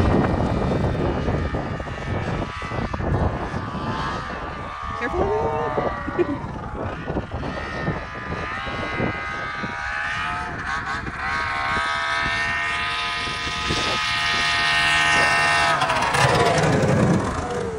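Snowmobile engine running. Its pitch climbs steadily for several seconds as the sled speeds up, then drops away near the end.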